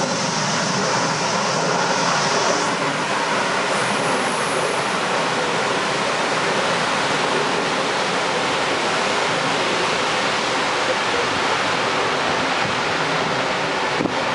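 Gulfstream II's two Rolls-Royce Spey turbofans at takeoff power, a loud, steady jet rush as the aircraft rolls away down the runway. A high whine on top drops away about three seconds in.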